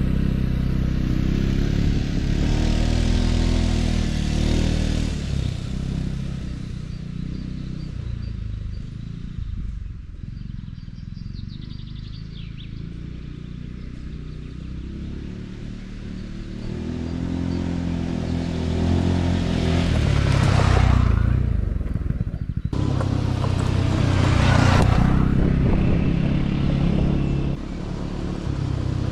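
Segway Snarler AT6 L ATV's 570 cc single-cylinder four-stroke engine pulling away loudly, fading into the distance, then growing louder again as the ATV comes back and passes close by. It passes close twice more near the end.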